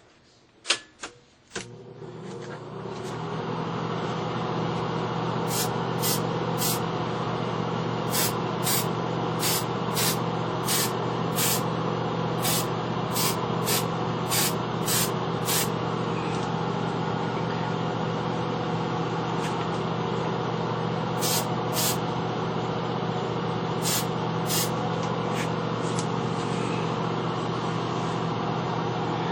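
A few sharp clicks, then a motor starts up and runs with a steady hum. Over it come rows of short, high hissing strokes, about two a second.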